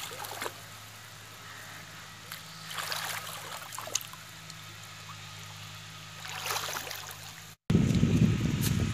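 Pond water splashing and sloshing in several short bursts as hands and legs churn through shallow water. Near the end a much louder low rumble takes over.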